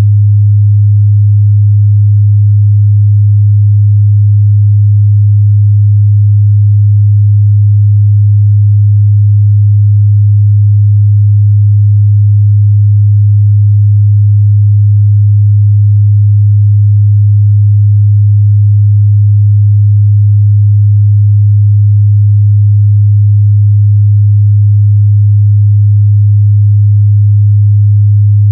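Steady 103 Hz sine-wave test tone, a loud, unchanging low hum.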